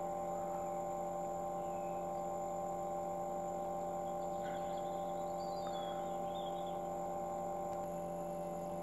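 Homemade glycol chiller running under load with a steady, even hum, chilling a tub of antifreeze.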